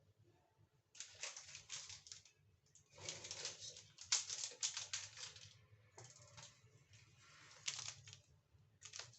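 Spoon stirring cake batter in a mug: several bursts of rapid clinking and scraping against the sides, with short pauses between them.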